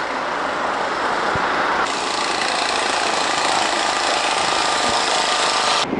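Jackhammer breaking up pavement at road works, a dense steady hammering that grows louder about two seconds in and cuts off abruptly near the end.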